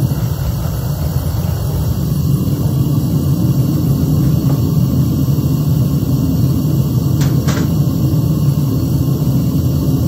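Gas burner of a home-made metal-melting furnace running steadily, its sound mostly low-pitched. Two short clicks come close together about seven seconds in.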